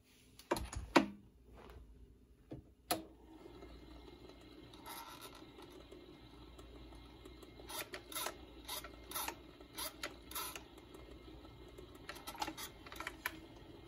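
Tone arm of an Admiral 6F11-N 78 RPM record changer being handled and moved by hand: scattered small clicks and knocks, in clusters through the middle and again near the end. A low steady hum starts about three seconds in.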